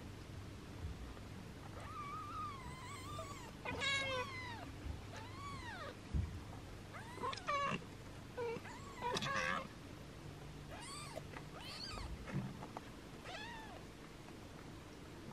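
A six-day-old kitten mewing again and again in short, high-pitched cries, about ten in all, protesting while its mother grooms it. A couple of soft bumps come in between the cries.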